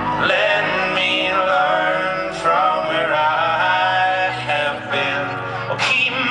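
Male voices singing sustained, wordless harmonies over a live folk-rock band, with a couple of brief cymbal-like crashes.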